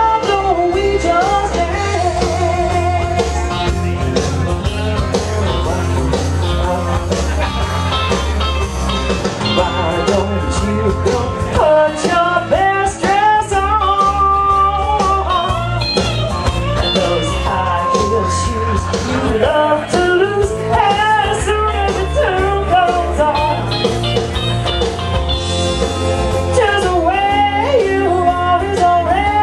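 Loud rock-and-roll or blues style song with a singing voice over a steady bass beat, played for a stage act.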